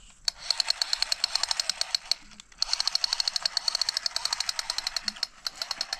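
Rapid, even mechanical clicking, about a dozen clicks a second, running in three spells with brief pauses between them.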